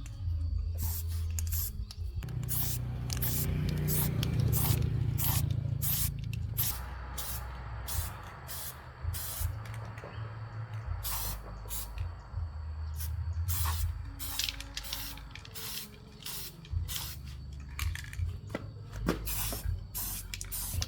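Repeated short hissing bursts of spray, irregularly spaced, over a low steady hum that swells a few seconds in.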